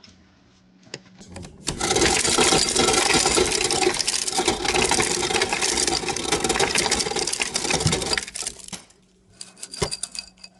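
A small motor, likely a kitchen appliance, starts abruptly and runs steadily for about seven seconds, then stops, with a few light knocks afterwards.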